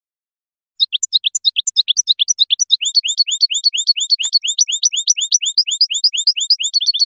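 European goldfinch singing: a fast, even run of short, thin, downward-slurred notes, about eight a second, starting about a second in.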